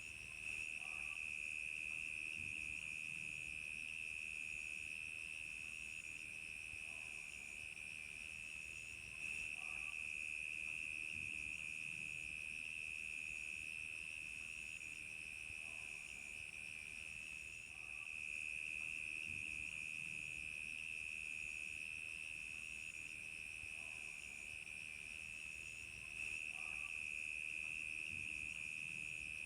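Crickets chirping in a steady, continuous high trill, with more insects layered at higher pitches, one of them pulsing in an even rhythm.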